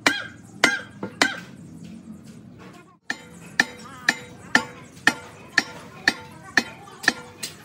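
Hammer blows on metal with a short ring after each strike. There are three at the start, then a brief gap about three seconds in, then a steady run of about two a second.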